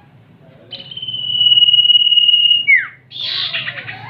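Common iora (cipoh) calling: one long steady whistle of about two seconds that drops sharply at the end, followed by a harsh, buzzy chatter.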